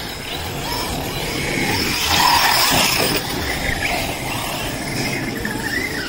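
Radio-controlled off-road trucks driven hard on a dirt track: motors whining up and down in pitch over the noise of tyres on loose dirt, loudest between two and three seconds in.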